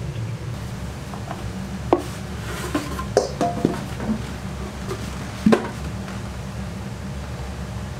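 Steady low machine hum with a few sharp knocks and clatters as a silicone spatula is worked against a metal batter pipe and a plastic-lined bucket, the loudest knocks about two seconds in and about five and a half seconds in.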